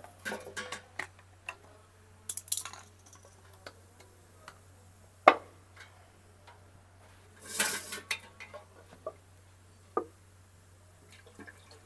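Scattered metallic clinks and knocks as a metal tin of automatic transmission fluid and a bucket-type hand fluid pump are handled and set up for pouring. There is a louder single knock about five seconds in, a short scraping rustle around eight seconds, and another knock near ten seconds.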